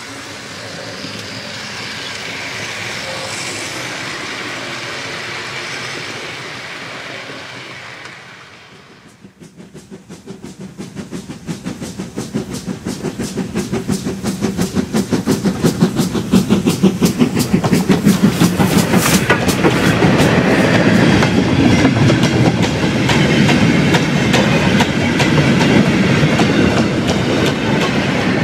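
Steam locomotive hauling a freight train up to and past a trackside spot: a rapid, regular beat grows louder as it approaches, then the wagons run by close at hand, their wheels clattering on the rail.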